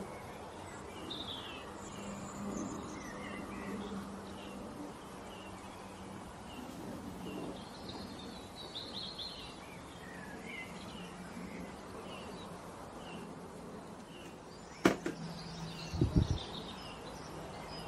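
Small birds chirping now and then in the background over a steady low hum. Near the end come a sharp click and a quick run of knocks, the loudest sounds here.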